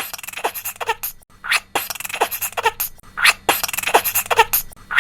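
A series of short, harsh animal calls, roughly one to two a second, each falling steeply in pitch.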